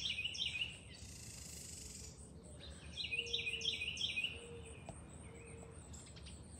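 A songbird singing a short phrase of quick chirps, repeated several times in two bouts, one at the start and one about three seconds in. A brief soft rush of noise comes about a second in, and faint low hoots from another bird sound in the middle.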